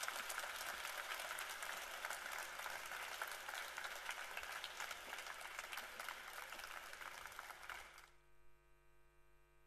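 Large audience applauding, a dense mass of many hands clapping; the applause cuts off suddenly about eight seconds in.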